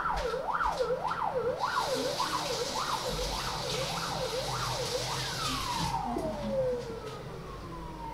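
An emergency-vehicle siren going up and down about twice a second, then winding down in one long falling tone near the end. Partway through, a hiss like running tap water sounds under it.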